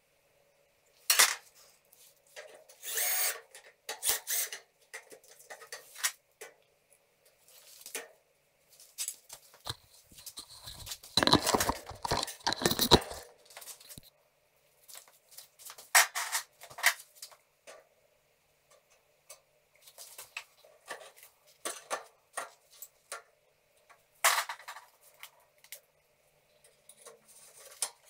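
Hand work on a steel drywall frame: scattered clicks, knocks and light metal rattles from galvanized metal profiles and hand tools being handled, with a longer, louder clatter and scrape about eleven to thirteen seconds in.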